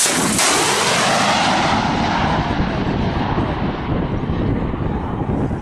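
Shoulder-fired anti-aircraft missile launching: a sharp blast, then the rocket motor's loud hiss fading gradually over a few seconds as the missile flies away.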